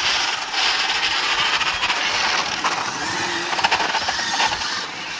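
RC car running fast over coarse asphalt, heard close up: a loud, steady tyre-and-road hiss scattered with small clicks and rattles of grit.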